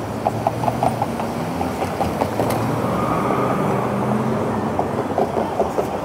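Downtown street traffic: vehicles running past with a steady low hum, and two short runs of quick ticks, one near the start and one near the end.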